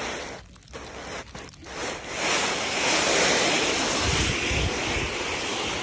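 A plastic sled scraping and hissing as it slides over snow. A few crunches come first, then a steady rushing noise sets in about two seconds in.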